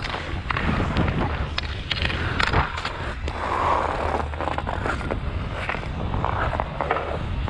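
Ice skate blades gliding and scraping on outdoor rink ice, with sharp clicks and scrapes as the skater strides and turns, over a steady low rumble.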